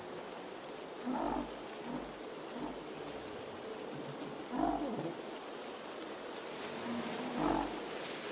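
Blizzard ambience: a steady hiss of wind-driven snow, with five short, low, muffled thumps scattered through it, the two loudest about halfway in and near the end.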